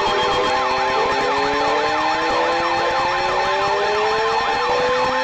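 Electronic emergency alert tones between broadcast warnings: steady held tones under fast, repeated rising-and-falling siren-like sweeps, with slower tones gliding upward beneath them.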